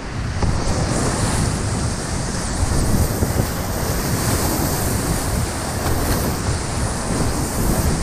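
Class V river rapids rushing loudly and steadily around a whitewater kayak running through them, with water splashing close to the microphone.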